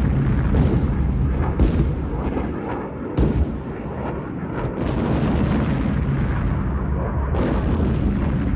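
Anti-aircraft shell bursts: about six sharp bangs at irregular intervals over a continuous heavy low rumble.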